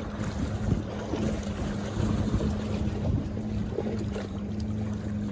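Wind buffeting the microphone over surf, with a steady low hum underneath.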